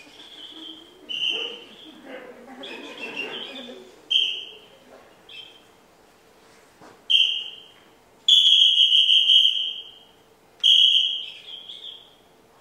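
A high-pitched whistle blown in a series of short toots, about eight in all, with one longer toot of about a second and a half some eight seconds in.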